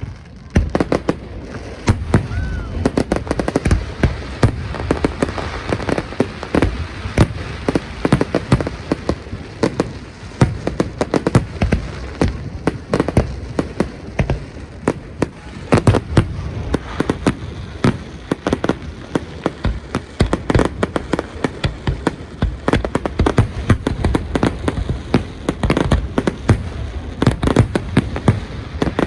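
Fireworks display in full swing: a dense, continuous barrage of bursting shells, several bangs a second with rumbling echoes, starting about half a second in.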